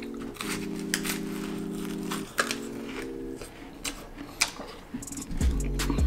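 A plastic snack wrapper crinkling, with crisp crunches of bites into a flaky pastry, over background music of held chords; a deep bass line comes into the music near the end.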